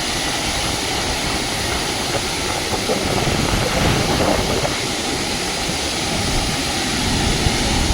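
Steady roar of a large waterfall, rushing water heard as an even, unbroken noise.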